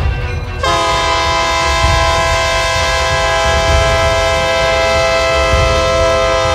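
Locomotive multi-chime air horn sounding one long, steady chord about half a second in and held to the end, over the low rumble of the running train.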